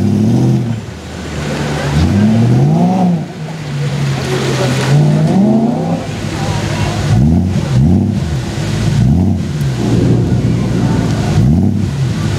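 BMW M3 engine revved in a series of blips, its pitch sweeping up and dropping back about six times, with one longer held rev near the middle.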